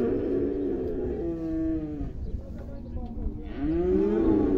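Zebu cows mooing: a long low moo is already sounding at the start and fades about two seconds in, and another moo begins about three and a half seconds in.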